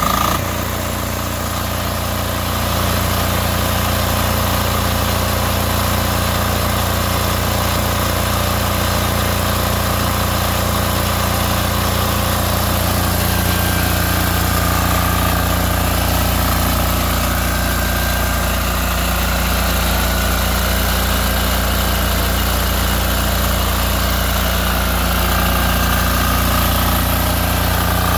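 A 6500 W diesel generator's single-cylinder air-cooled diesel engine runs steadily, just after starting, with a loud, even low drone. It gets a little louder about three seconds in.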